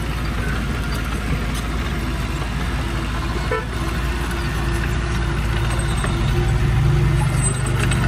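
Heavy diesel earthmoving machinery running steadily. About six seconds in, its engine note grows louder for a second or two, as under load.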